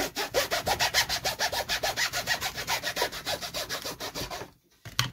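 Hobby knife blade sawing through balsa sheet along an aluminium straight edge, in quick, even back-and-forth strokes that stop about four and a half seconds in, followed by a light click.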